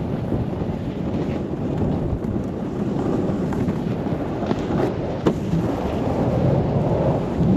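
Snowboard sliding and carving on groomed snow, a steady hiss and scrape of the base and edges, mixed with wind buffeting the camera's microphone at riding speed. A single sharp tick comes about five seconds in.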